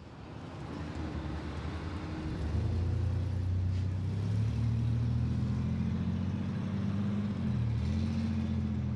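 Road traffic: vehicle noise builds over the first couple of seconds, then from about two and a half seconds in a motor vehicle's engine runs close by with a steady low hum, its pitch shifting briefly near the end.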